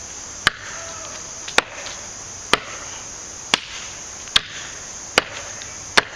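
WC Knives Prepper, a custom 1095 carbon-steel chopper knife, chopping into a maple branch: seven sharp chops about a second apart.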